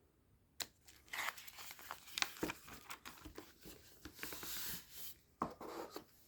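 Thin plastic bag of LEGO parts crinkling and tearing as it is handled and opened, with scattered small clicks. It begins about half a second in and stops just before the end.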